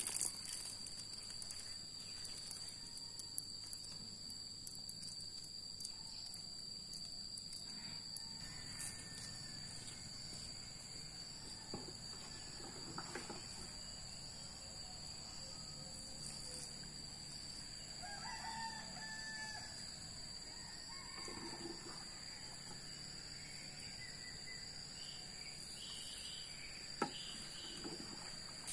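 Chickens: a rooster crowing and hens clucking, faint, over a steady high-pitched drone.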